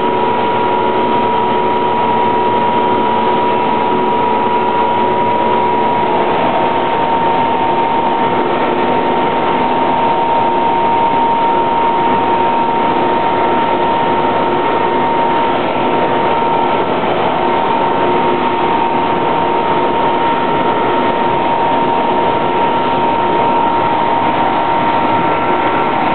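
Parasailing tow boat's motor running steadily under way, a constant mechanical noise with a steady high whine through it.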